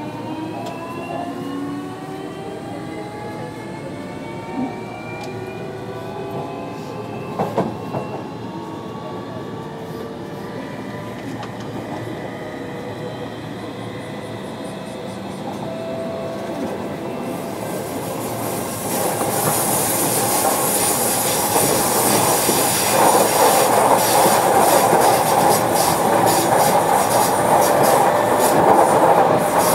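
JR Kyushu 305 series electric train heard from inside the motor car as it accelerates: the VVVF inverter and permanent-magnet motors give several tones that rise steadily in pitch over the first dozen seconds. Wheel and rail noise then grows louder and fuller through the second half as the train gathers speed.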